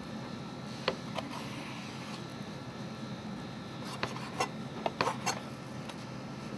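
Chef's knife trimming a salmon fillet on a plastic cutting board: a couple of sharp taps about a second in, then a quick run of five or so taps and scrapes of the blade on the board around four to five seconds in, over steady background noise.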